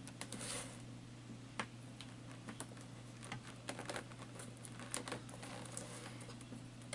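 Fingers and a small metal tool picking and scraping at the sealed top of a cardboard box, making irregular light clicks and scratches like tapping on a keyboard.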